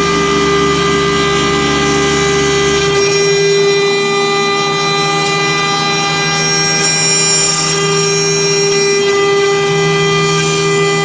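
CNC engraving router machining a workpiece on its rotary attachment: a steady, loud whine from the spindle and axis motors, whose lower tones shift about three seconds in and again near the end as the machine changes its moves.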